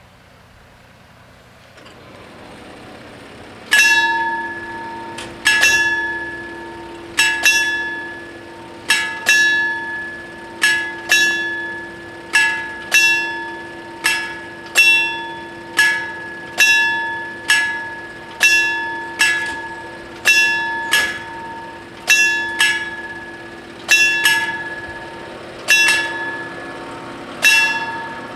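Electric warning bells of an FS 64 level crossing begin striking about four seconds in, ringing about once a second, each stroke ringing on briefly, with a steady hum beneath: the crossing's warning that a train is approaching and the barriers are about to lower.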